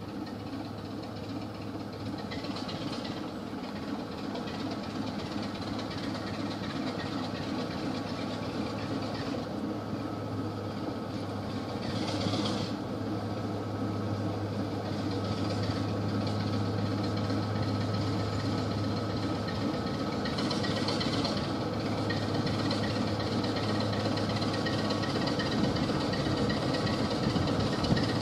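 Diesel locomotive engine running as the locomotive moves slowly along the tracks, a steady low hum that grows gradually louder as it comes closer. Short hisses break in about twelve and twenty-one seconds in.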